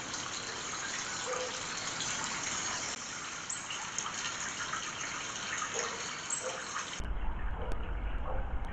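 Steady rush of running spring water. About seven seconds in it changes abruptly to a duller sound with a low rumble underneath.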